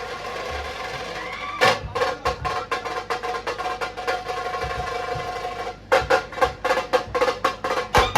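Dhol-tasha band playing a piece that imitates a running train: a held brass chord sounds throughout, and about one and a half seconds in the tasha drum joins with sharp, even strokes about four a second, breaking off briefly near six seconds before going on.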